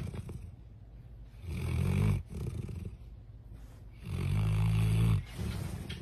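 A dog snoring like a human: two long, low snores about two and a half seconds apart, with softer breaths between them.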